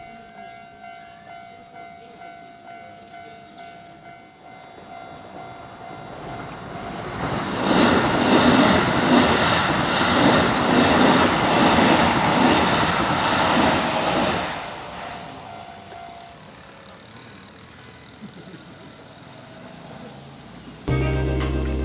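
Japanese level-crossing warning bell ringing in a steady pulsing rhythm while a Keikyu electric train passes over the crossing. The train's rumble builds from about six seconds in, is loudest for about seven seconds, then fades, and the bell stops soon after. Music cuts in near the end.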